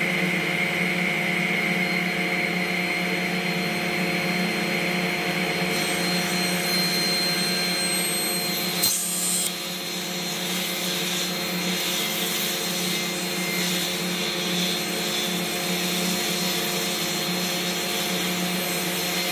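Table saw running, its blade ripping along the edge of a board held in a plywood jointing sled. The steady motor hum is joined by the hiss of the blade cutting wood from about six seconds in.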